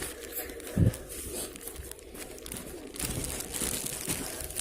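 Rustling and crinkling noise from scrambling and handling, with one dull thump about a second in.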